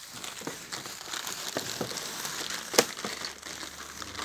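Plastic packaging crinkling and rustling as gloved hands handle a bagged welding torch cable, with one sharp knock about two-thirds of the way through.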